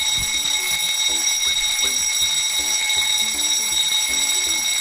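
Electric fire alarm bell, a gong bell with a striker, ringing continuously with a loud, steady high ring.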